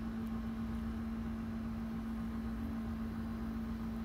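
A steady hum with one constant low tone over a faint rumble, unchanging throughout, such as an appliance or electrical hum.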